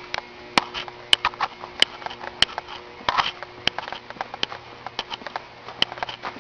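Footsteps walking at a steady pace, each step a sharp click, about three every two seconds, with a faint steady hum underneath.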